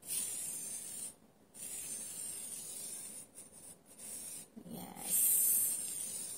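A fingertip dragging through a layer of salt on a tray, a soft gritty hiss in several strokes with short pauses between them as a letter is traced. The last stroke is the loudest.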